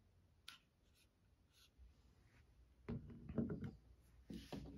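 Faint handling sounds of a Powerhobby SCWS2000 corner-weight scale pad being set down on the bench: a single click about half a second in, then a cluster of light knocks about three seconds in and a brief rustle near the end.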